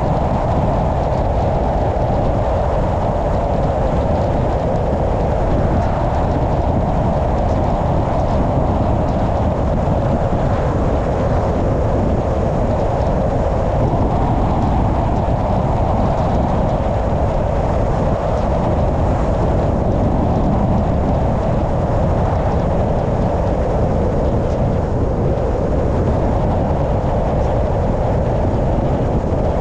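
Steady running noise of a car driving on a road: engine, tyre and wind noise at an even speed.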